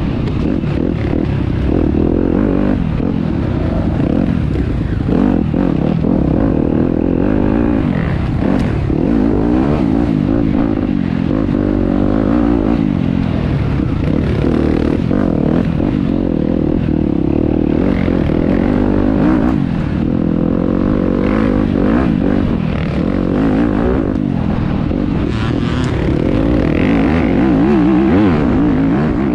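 Enduro dirt bike engine ridden hard off-road, its revs rising and falling over and over with throttle and gear changes, with some clattering and scraping mixed in.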